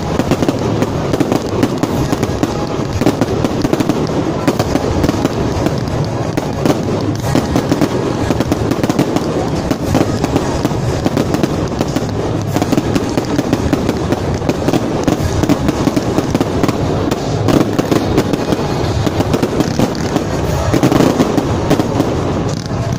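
Fireworks going off without a break: dense crackling and popping from spark fountains and shells bursting overhead.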